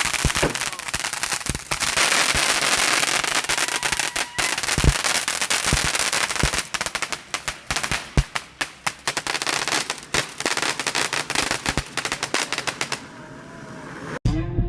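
Fireworks crackling and popping in a dense, rapid run of sharp bangs, thinning out near the end and then cutting off suddenly.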